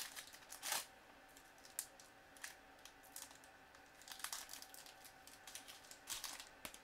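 Hockey trading cards and their foil pack wrappers being handled: faint scattered crinkles, rustles and light clicks as cards are shuffled and slid.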